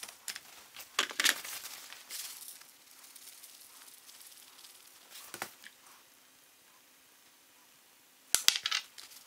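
Raw steaks being handled and seasoned on a metal sheet pan: hands turning and pressing the meat, and salt sprinkled from a shaker onto it, with soft scattered rustles and ticks. A couple of sharp clicks near the end are the loudest sounds.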